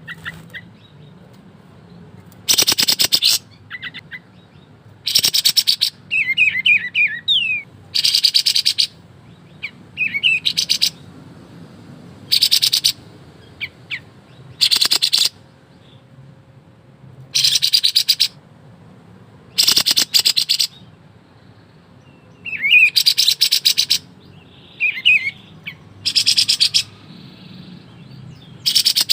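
Kapas tembak songbird singing in rapid rattling trill bursts, each lasting under a second and repeated every two to three seconds, with short high downward chirps in the gaps.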